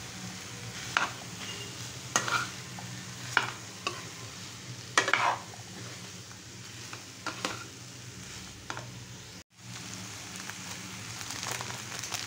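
A metal spatula stirring and scraping chickpeas and potato chunks around a nonstick frying pan, over a steady sizzle of frying masala. The scraping strokes come about once a second at first. The sound drops out for a moment about nine seconds in.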